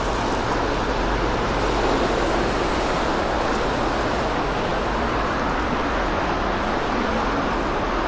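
Steady road traffic noise: an even wash of tyre and engine sound from passing cars, with no single vehicle standing out.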